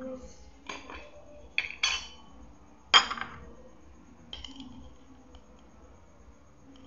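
Metal spoon clinking against glass as oat flakes are scooped out of a glass jar: about five sharp clinks with a brief ring in the first half, the loudest about three seconds in.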